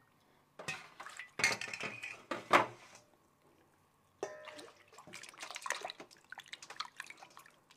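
Metal utensils clattering against dishes, loudest about one and a half and two and a half seconds in. A stainless steel bowl then rings briefly, followed by water splashing and dripping as hands peel and rinse a blanched geoduck clam in the bowl.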